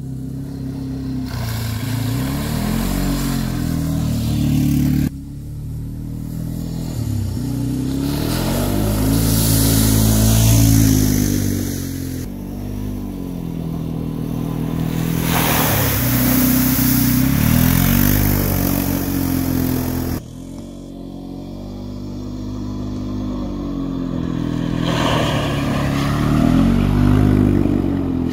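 ATV engine revving hard as the quad is driven through a mud pit, its pitch climbing and falling with the throttle, with a hiss of spraying mud and water at its loudest moments. The sound breaks off abruptly three times and starts again, each stretch growing louder as the machine comes closer.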